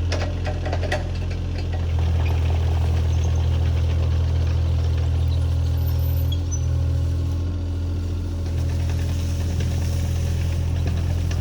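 Diesel engine of a compact earthmoving machine running steadily, its level stepping up and down a few times, with a few sharp knocks about a second in.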